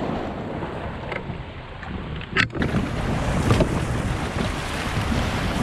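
Wind buffeting the microphone over the wash of small waves and sea water around a kayak, a steady rough rumble. There is a brief sharp knock about two and a half seconds in.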